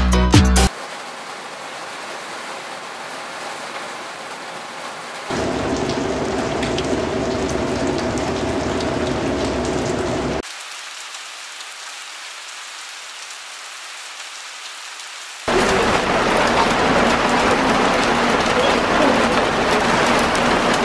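Rain falling and pattering on roofs and wet pavement: a steady hiss in several clips cut together, stepping between louder and quieter stretches. A moment of background music ends just at the start.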